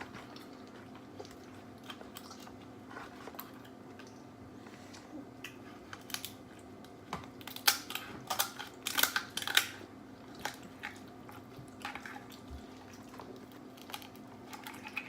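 Scattered small cracks, clicks and crunches of king crab legs being broken open and eaten, thickest about halfway through, over a faint steady hum.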